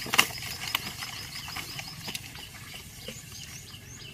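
Net fish trap being shaken out into a plastic bucket: a sharp knock just after the start, then scattered taps and pattering as the catch drops in. A fast run of small high chirps sounds through the first couple of seconds and thins out after.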